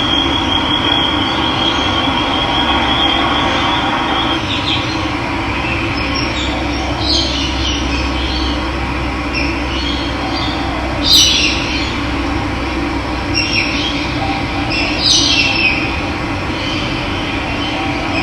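Steady rush of running water with birds calling over it. A fast high trill runs for the first few seconds, then short chirps come at intervals, the loudest about eleven seconds in.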